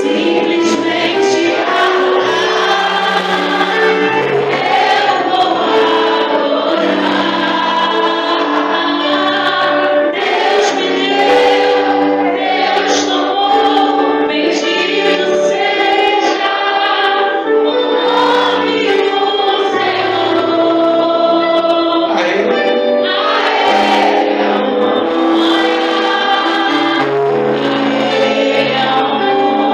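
Choir singing a Portuguese-language Christian worship song, steady and continuous with held notes.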